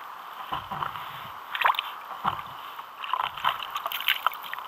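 Small waves lapping and slopping against a sit-on-top kayak's hull, with a few soft knocks and clicks.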